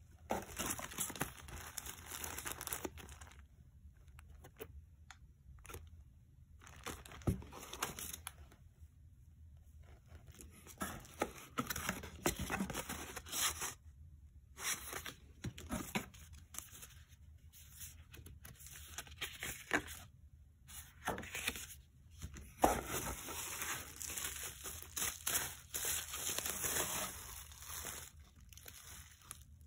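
Hands handling packaging: plastic sleeves, bubble wrap and paper cards crinkle and rustle in irregular bursts with short pauses, with a sharp click about three-quarters of the way through.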